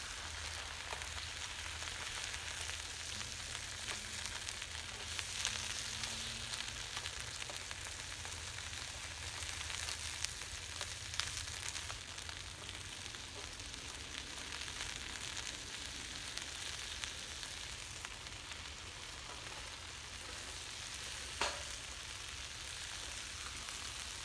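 Peas, corn and onions sizzling steadily in a frying pan over a propane burner, with a utensil stirring in the pan now and then. A single sharp click comes near the end.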